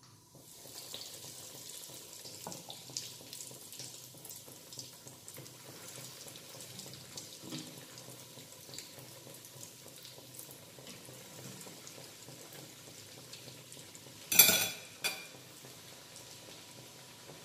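Breaded beef cutlets sizzling and crackling steadily as they deep-fry in hot oil in a small pan. Near the end, two sharp knocks, the first one loud, as the metal pan or spoon is handled.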